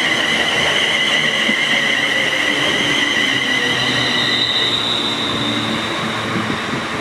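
A train running past on the line, loud and steady, with high-pitched squealing tones over the rumble; the tones shift higher about four seconds in.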